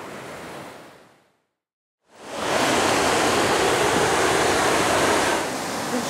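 A faint background wash fades to a moment of silence, then the steady rush of Harajiri Falls, a wide horseshoe-shaped waterfall, fades in about two seconds in and holds loud, dropping slightly in level near the end.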